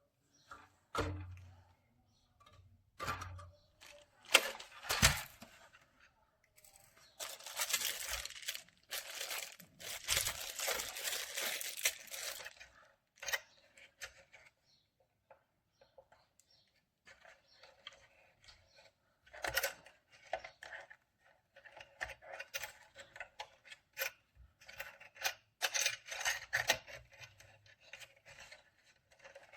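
Handling noises: a few sharp clicks and knocks, with stretches of rustling or scraping and light clinks of small objects in between.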